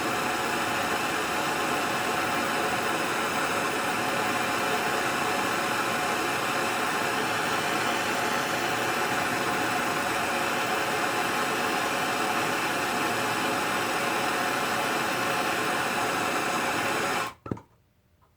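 Steady rushing hiss of a heating tool blowing heat onto a screwdriver's steel shaft to soften the plastic handle, cutting off suddenly near the end.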